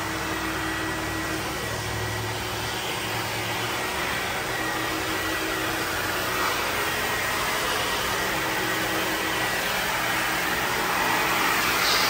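Steady mechanical hiss and hum with a faint high whine, growing a little louder near the end.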